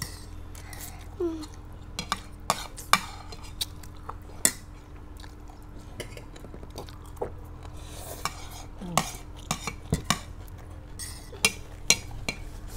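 Metal forks and spoons clinking and scraping against plates as several people eat noodles, in irregular sharp clinks.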